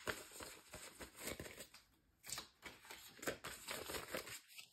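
Faint rustling and crinkling of a polymer banknote and a cash envelope being handled as a bill is slipped into the envelope, with a short lull about two seconds in.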